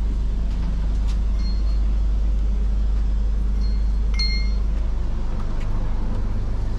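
Steady low rumble of a vehicle in motion, heard from inside, with short high electronic beeps about one and a half seconds in and again around four seconds in.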